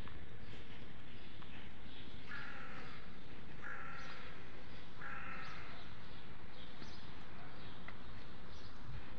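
A bird gives three harsh calls, each a little under a second long and about a second and a half apart, over faint chirping of small birds and a steady low outdoor rumble.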